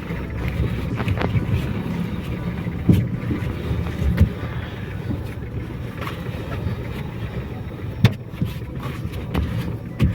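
Fiat Mobi interior noise while driving: a steady low rumble of engine and road, with three short sharp knocks about 3, 4 and 8 seconds in.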